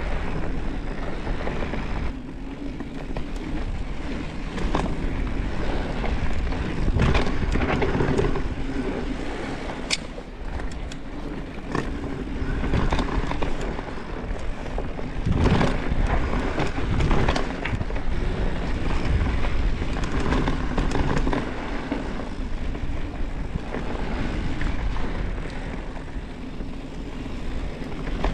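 Mountain bike descending a damp dirt trail at speed: a steady rush of tyre and wind noise on the camera microphone, with sharp knocks and rattles now and then as the bike goes over bumps, roots and rocks.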